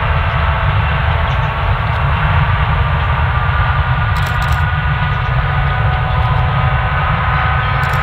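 Diesel locomotives running as two trains pass: a steady heavy rumble with a faint whine that rises slowly.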